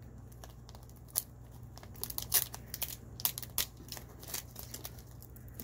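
Plastic packaging bag being handled, crinkling and rustling in a scatter of small, irregular crackles and clicks.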